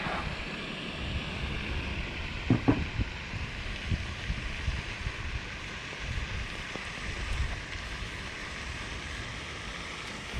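Wind buffeting the microphone, a steady rumble with a hiss. Two sharp knocks come in quick succession about two and a half seconds in.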